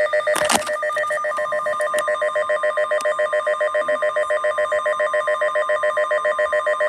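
Emergency alert attention signal: a loud electronic tone of several pitches pulsing rapidly, about eight times a second, like a telephone ringing. A steady single tone joins about a second in and keeps sounding after the pulsing stops at the end.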